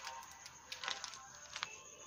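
A few short clicks and knocks over faint background music.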